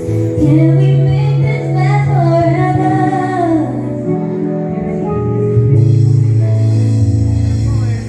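Live band jamming on electric guitar and bass under a woman's sung line, which bends and slides through the first half; after that the band holds steady chords.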